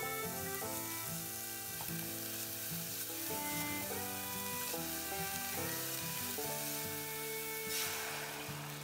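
Minced pork sizzling as it is dry-fried with no oil in a ceramic saucepan and stirred with a silicone spatula. Near the end, hot water is poured into the pan. Background music with held notes plays throughout.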